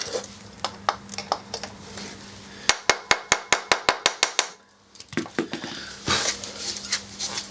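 A quick run of about ten sharp metal-on-metal taps, some five a second, starting almost three seconds in, with scattered clinks and scrapes of metal tools against the exhaust silencer before and after, as a tight-fitting dB-killer baffle is worked out of the can with locking grips.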